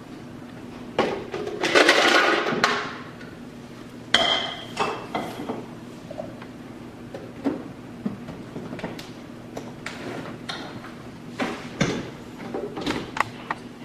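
Ice cubes tipped from a measuring cup into a plastic blender jar, a rattling clatter about two seconds in, followed by scattered knocks and clinks as the jar is handled and set onto the blender base.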